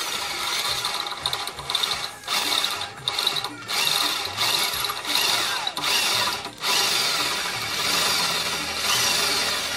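Electric hand drill running under load, its bit grinding into the snapped bleeder nipple of a motorcycle's front disc-brake caliper to drill it out. The drill drops off briefly several times and picks up again.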